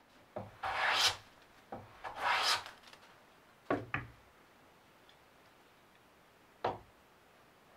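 Two short hissing strokes of a hand plane shaving along a board's edge, followed by three sharp wooden knocks as tools are set down on the workbench.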